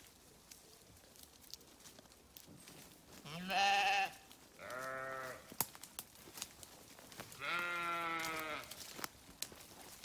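Sheep bleating three times, at about three and a half, four and a half and seven and a half seconds in: the first call is the loudest, the second lower-pitched, and the last the longest.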